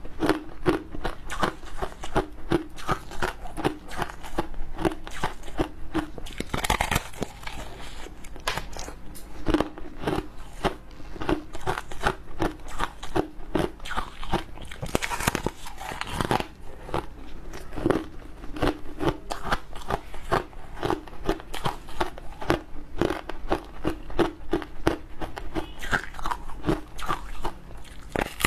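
Close-miked crunching and chewing of soft, frosty foam ice: a steady run of rapid crisp crunches as it is chewed, with a few louder bites into the slab about a quarter and halfway through.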